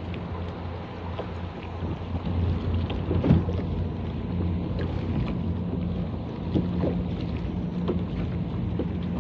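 Wind buffeting the microphone and small waves lapping against a kayak, over a steady low hum, with a few louder splashes about three seconds in and again near seven seconds.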